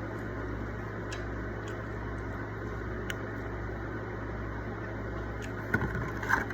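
Steady low mechanical hum with a few faint clicks, and a brief cluster of louder handling and eating noises near the end.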